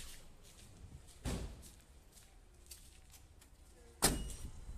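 A car door shut with a thump about a second in, then slammed louder near the end, with faint clicks between.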